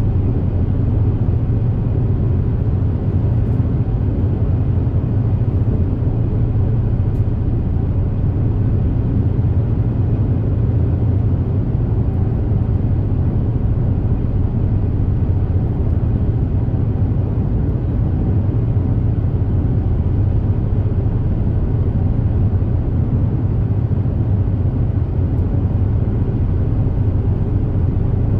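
Steady low drone of the Super Jet high-speed ferry running at speed, its engines and hull heard on board with no change throughout.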